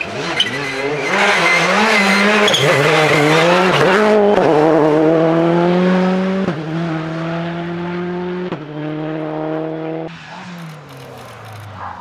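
Citroën C3 rally car's turbocharged 1.6-litre four-cylinder engine, its revs wavering on and off the throttle through a tight hay-bale chicane. It then accelerates hard away with three upshifts about two seconds apart, each a sudden drop in pitch, and fades into the distance.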